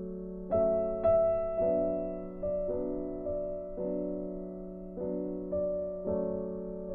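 Background piano music: a slow piece with notes struck about every half second over a held low note.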